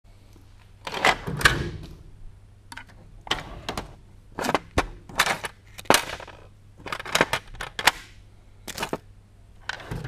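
Metal tool chest drawers being pulled open and pushed shut and rummaged through: a run of sharp metallic clacks and rattles, some dozen of them.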